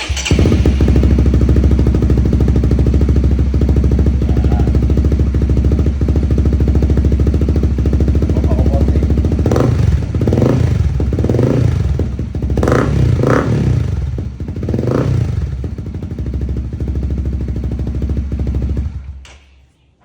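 Honda CBR150R's single-cylinder engine idling through an SC Project exhaust with the silencer (dB killer) fitted. About halfway through it is revved in a series of quick throttle blips, then settles back to idle. The sound cuts off just before the end.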